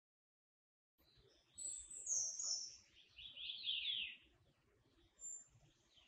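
Snowy-browed flycatcher singing: after a second of silence, a short run of high, thin notes, several sliding down in pitch, then one brief high note near the end.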